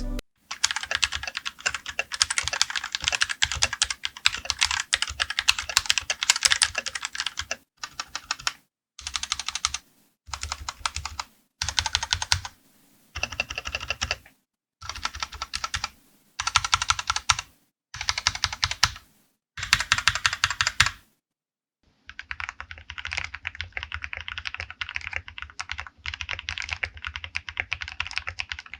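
Royal Kludge RK68 mechanical keyboard being typed on in a sound test. A stretch of continuous typing is followed by a run of short one-second bursts of keystrokes with silent gaps between them. After a brief pause, steady typing resumes with a duller, less clicky tone.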